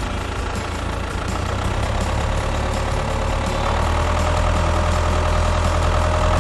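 Train sound effect: a locomotive engine rumbling steadily and growing a little louder, with a steady whine joining in about a second and a half in and strengthening partway through.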